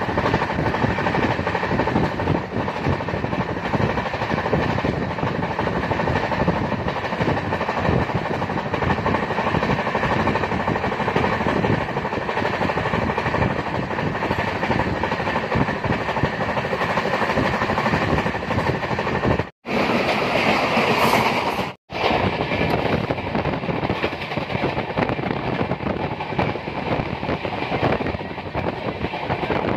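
Moving passenger train heard from the coach doorway: a steady rumble and rattle of the coach wheels on the rails. The sound drops out sharply twice, briefly, about two-thirds through.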